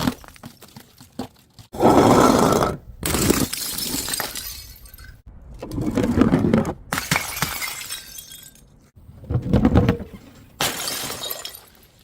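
Glass bottles smashing and shattering: about five separate breaks a couple of seconds apart, several starting and stopping abruptly.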